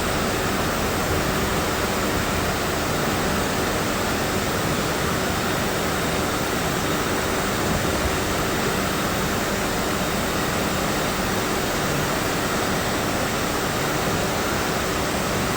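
Steady, loud machinery roar with a faint hum running through it, unchanging throughout.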